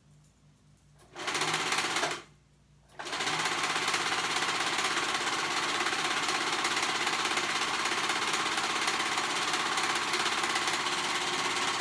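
An older serger (overlock machine) stitching a knit seam, a fast, even rattle. It runs briefly for about a second, stops for a moment, then runs steadily for about nine seconds.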